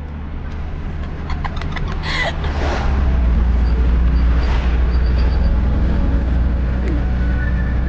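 Car interior noise while driving: a steady low rumble of engine and road that grows louder over the first few seconds and then holds, with a few faint clicks and rustles about two seconds in.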